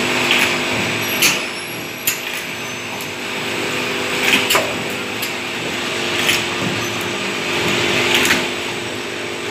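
Juice bottle filling and capping machine running: a steady motor hum with a hiss over it, and sharp clicks and clacks at irregular moments, about every second or two, as bottles move along the conveyor.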